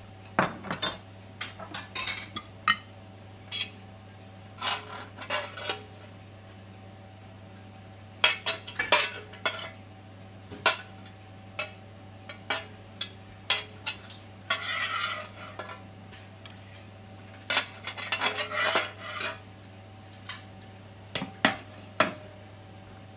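Metal tongs clinking and scraping against a stainless steel platter in irregular bursts, over a steady low hum.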